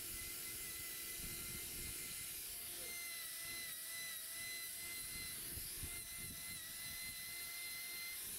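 Angle grinder with a hoof-trimming disc running steadily against a cow's hoof, a constant whine whose pitch dips slightly a couple of times as the disc bites into the hoof horn.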